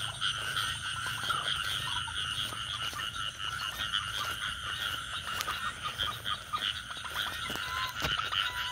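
A dense night chorus of frogs calling, a steady mass of rapid pulsing calls, with a few faint clicks near the end.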